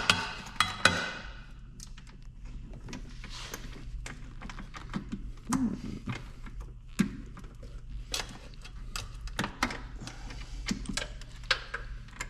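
Scattered clicks and light knocks of hand tools and small metal parts being handled while working on a snowmobile's fuel system.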